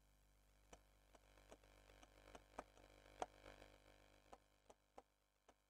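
Near silence, with faint scattered ticks of writing on a board. The clearest tick comes about three seconds in.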